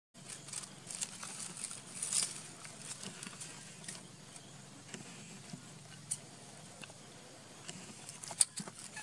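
Light crackling and tapping as a baby macaque scrabbles over stones and dry leaves, busiest in the first couple of seconds, with one sharp click near the end, over a faint steady hum.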